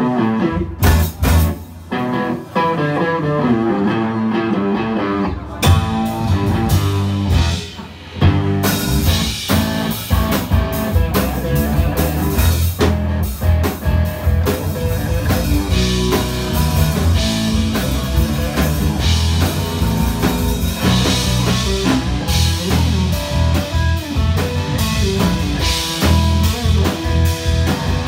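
Live blues band playing: electric guitar leading over bass guitar and drum kit. The drums and cymbals fill in fully about eight seconds in.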